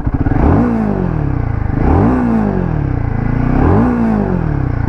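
Royal Enfield Himalayan 450's 452 cc single-cylinder engine revved three times from idle while the bike stands still, each blip rising quickly and then falling back slowly to idle, showing off its exhaust note.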